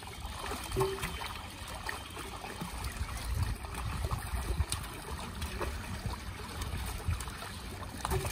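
Water splashing and trickling as live fish thrash inside a seine net drawn together in shallow water, with small irregular splashes and water running off the netting.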